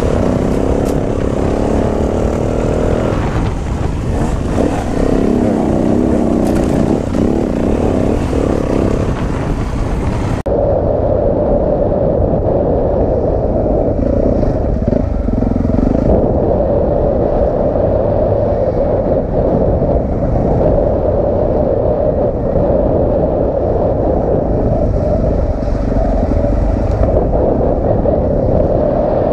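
Dirt bike engine running on a trail ride, its pitch rising and falling through the first ten seconds, then an abrupt change to a steadier, duller drone.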